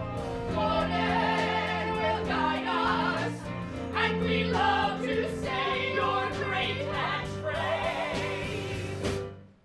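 Several voices singing a musical-theatre number over instrumental accompaniment with held low notes. The music cuts off suddenly near the end.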